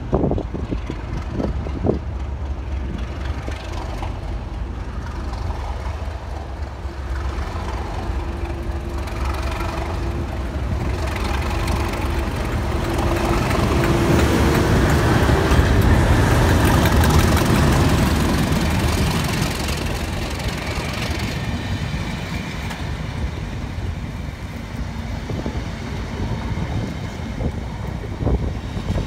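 Class 37 diesel locomotive, with its English Electric V12 engine, approaching and passing close by. The engine note grows to a peak about halfway through as the locomotive goes past, then gives way to the steadier rumble of the coaches running over the rails.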